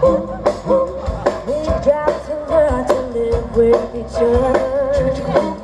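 Live rock band playing: a lead singer's voice over a steady drum beat and electric guitars, amplified through a PA.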